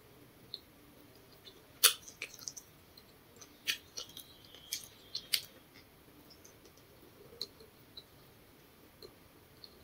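Close-up chewing of grilled potato: a scatter of short, sharp mouth clicks and smacks, several in quick succession in the first half, then a few isolated ones.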